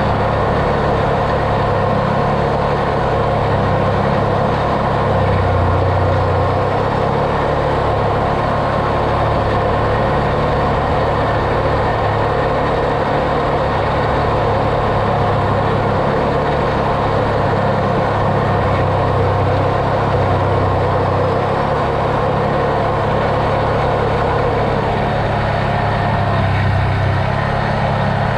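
Off-road vehicle's engine running steadily with a constant low hum while it drives, no revving or stops.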